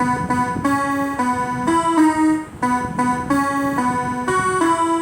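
A simple melody picked out one note at a time on a piano keyboard, about two notes a second, with a brief break about halfway through.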